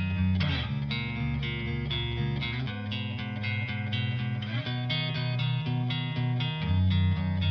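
Background music led by plucked guitar, with a bass line under it.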